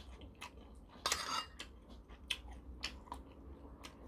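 Close-up eating sounds: a metal spoon clicking against bowls and chewing, with a short, louder slurp of stew broth about a second in.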